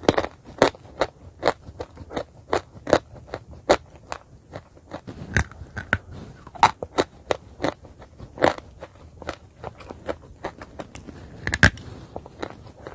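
A person biting and chewing pieces of chalk: crisp, dry crunches a few times a second, with louder snaps as pieces are bitten off, one of the loudest near the end.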